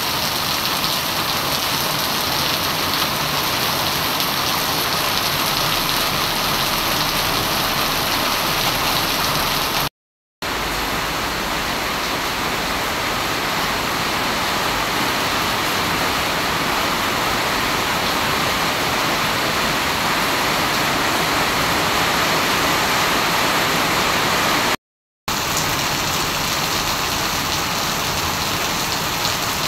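Heavy tropical rain pouring onto a flooded paved street, a dense, steady hiss of splashing drops. The sound cuts to silence for a moment twice.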